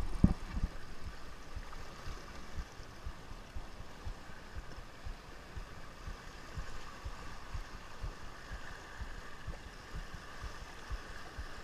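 Shimano Sahara 2500 spinning reel being cranked steadily to bring in a freshly hooked fish, over the wash of sea water on the rocks, with scattered low knocks.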